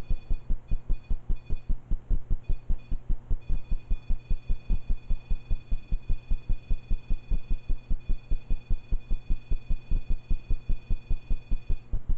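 Electronic alarm tone from ghost-hunting equipment (a REM pod or EMF meter being set off): a high beeping tone in broken pieces, then held steady from about three seconds in until it cuts off near the end. Under it runs a fast, low throbbing pulse, about six a second.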